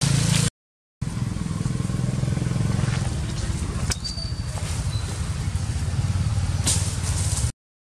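Steady low rumble of outdoor background noise, cut by brief silences near the start and near the end; a short, thin high tone sounds about four seconds in.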